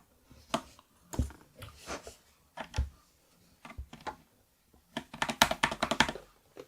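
Keys of a mechanical keyboard being pressed one at a time, each giving a sharp clack. About five seconds in comes a quick flurry of keystrokes.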